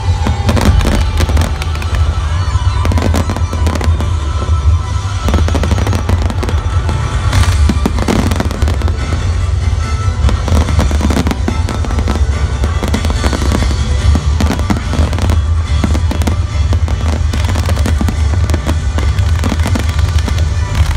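A fireworks display firing a dense, continuous barrage of bangs and crackling, with no break between the bursts.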